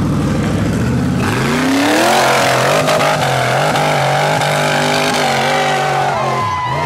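LS V8 engine of a tube-chassis rock bouncer rumbling low, then revving up about a second in and held at high revs at full throttle as the buggy climbs a steep dirt hill. The revs drop off near the end.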